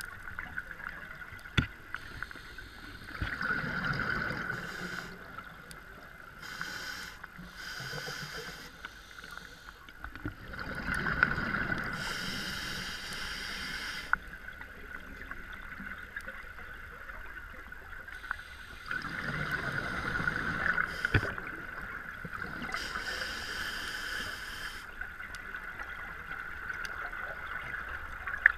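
Scuba diver breathing through a regulator underwater: a hiss on each inhale and a burst of bubbling exhaust on each exhale, roughly every eight seconds, with a few sharp clicks.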